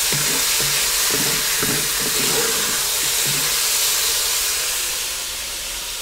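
Pork neck searing in hot sunflower oil in a Dutch oven: a steady sizzle that eases off a little about five seconds in.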